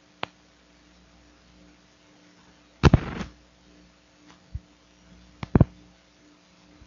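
Several sharp clicks and pops over a faint steady hum: a single click at the start, a loud double pop about three seconds in, a soft low thump, and another double pop near the end.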